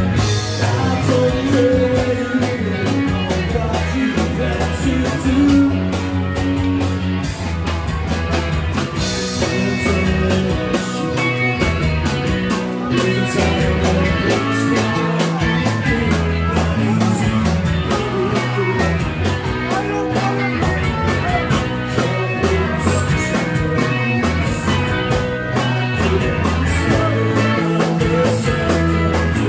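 Live rock band playing: guitar over a stepping bass line and a steady drum beat.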